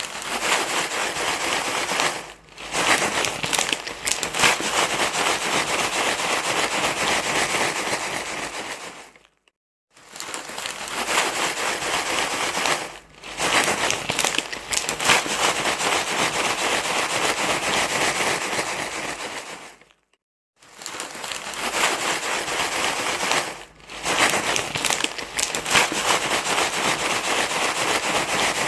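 Continuous crinkling, rustling noise played as a soothing sound for a crying baby, repeating in a loop of about ten seconds, with a short dip a couple of seconds into each pass and a brief gap of silence between passes.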